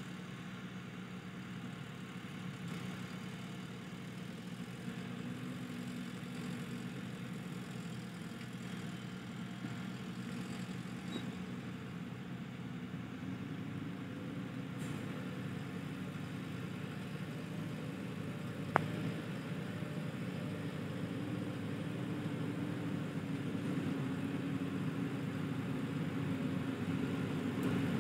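Diesel engine of a JCB 3DX backhoe loader running steadily and growing gradually louder, with a single sharp knock about two-thirds of the way through.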